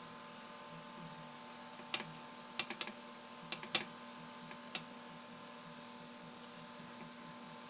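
Lumpia wrapper being folded and rolled by hand on a wooden board: a handful of short, light clicks and taps about two to five seconds in, over a steady hum.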